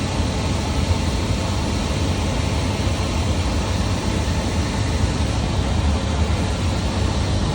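Furnace blower fan running steadily: an even rush of air over a low hum.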